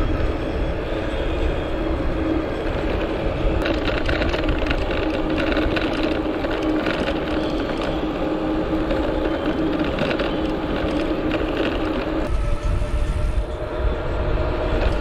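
Wind rushing over the microphone of a chest-mounted action camera on a moving e-bike, with the steady whine of its geared rear hub motor. In the middle the tyres rattle over cracked pavement, and near the end the motor's whine shifts higher.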